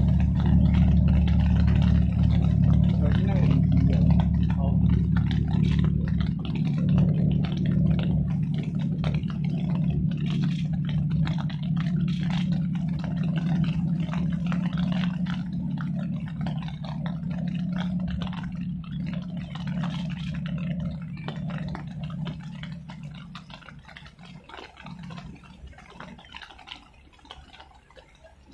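An engine running with a steady low drone, which fades away over the last several seconds.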